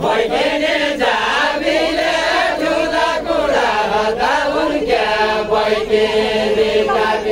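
A group of voices singing a Deuda, the Far-Western Nepali folk song, in chant-like unison, with a long held note in the second half.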